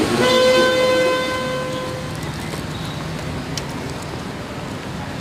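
A bugle call ending on one long held note, lasting about two seconds, then fades into outdoor background noise with a few faint clicks.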